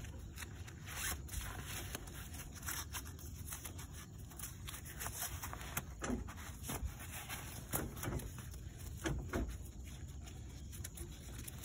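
Ribbon tie being fed through a metal bracket on a boat blind frame and knotted by hand: scattered short rustles and scrapes of strap and fabric being pulled through.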